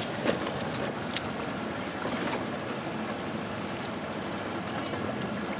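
Steady noise of a fishing boat at sea, water and wind washing around the hull, with two short clicks about a second apart near the start.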